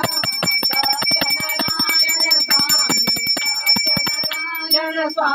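Small hand-held puja bell rung rapidly and without pause for the aarti, with people's voices over it.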